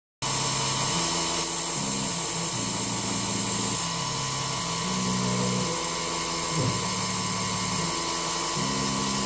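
Denford Triac CNC milling machine cutting a metal plate: a steady high whine over lower motor tones that jump to a new pitch every half second to a second as the cutter moves from path to path. It starts abruptly just after the beginning.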